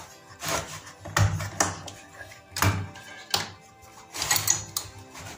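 Background music with scattered clicks and knocks from plastic wiring connectors being pulled off a CRT television's circuit board.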